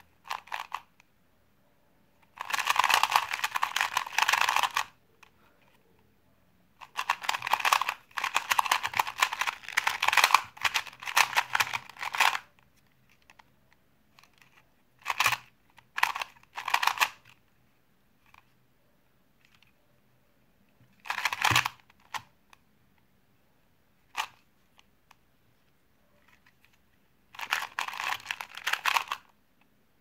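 Plastic 2x2 puzzle cube being turned fast by hand: runs of rapid plastic clicking and clacking as the layers turn. The runs are separated by short single turns and pauses with almost nothing to hear.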